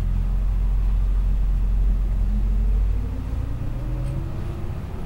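Diesel engine of a 1995 Hino Rainbow bus heard from inside while it drives, a heavy low rumble. About three seconds in the rumble eases and the engine note climbs steadily in pitch as it revs up.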